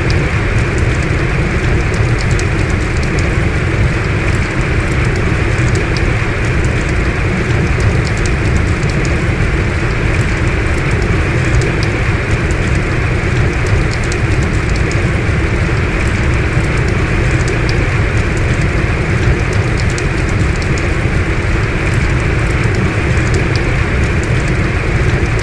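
Heavy rain falling steadily: a dense, even hiss with the patter of individual drops ticking through it.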